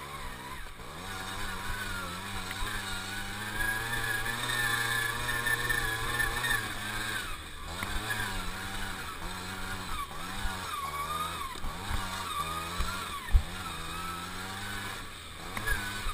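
Tomos APN 6 moped's 49 cc two-stroke single-cylinder engine running under changing throttle, its pitch rising and falling again and again as it revs and backs off. There is a sharp knock about 13 seconds in.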